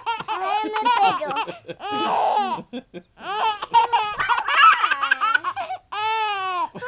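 A baby laughing in high-pitched peals with short breaks, a breathy laugh about two seconds in and a longer drawn-out high call near the end.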